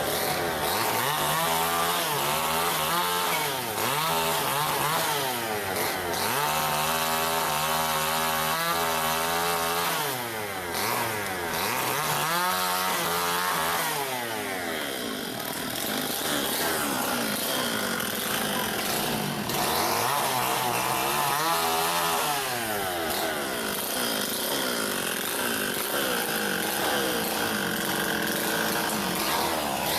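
STIHL chainsaw cutting wood, its engine pitch climbing to high revs and dropping back several times as the chain bites and eases off.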